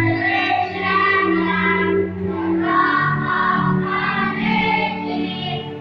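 A choir singing a slow song in long held notes over steady low accompaniment.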